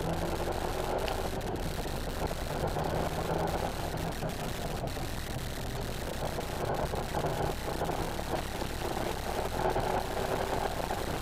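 Renault Mégane R26.R's turbocharged four-cylinder engine running under way, heard from inside the cabin, its pitch shifting with the revs, over a steady rush of road and tyre noise.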